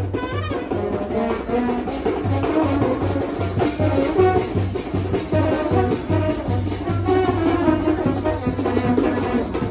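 Brass band playing, horns carrying the melody over a steady low drumbeat.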